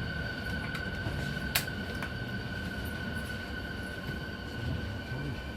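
Interior of a JR 209-500 series electric train: a steady high-pitched electrical whine from its onboard equipment holds one pitch over a low rumble, with a single sharp click about a second and a half in.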